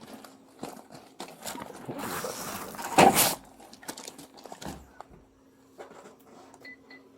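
Rustling and knocking of gear being handled close to a body-worn camera's microphone, building to one loud rubbing burst about three seconds in, then a few lighter knocks and two short faint beeps near the end.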